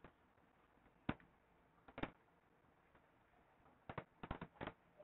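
Near silence broken by a few faint, short clicks: one about a second in, another about two seconds in, and a quick run of several near the end.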